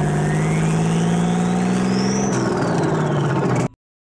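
Outro logo sound effect: a steady low drone with a whine that rises to a peak about two seconds in, then falls. It cuts off suddenly near the end.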